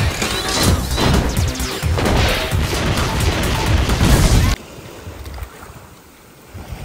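Loud animated-film action soundtrack: crashes and explosions over music, cutting off suddenly about four and a half seconds in. Then, much quieter, surf washing up on a beach with wind on the microphone.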